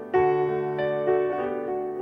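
Background piano music: chords struck and left to ring, with a fresh chord just after the start. No singing.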